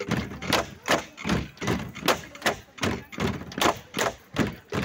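Bamboo poles of a Cheraw (Mizo bamboo dance) being clapped together and knocked against the base poles in a steady rhythm, about two to three knocks a second.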